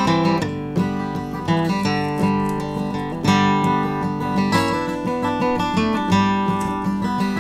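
Background music: acoustic guitar playing a run of plucked notes and chords.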